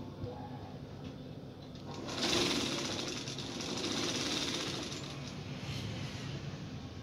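Mattress corner (tape-edge) sewing machine running steadily as it stitches edge tape around the border of a spring-bed mattress. It grows louder about two seconds in.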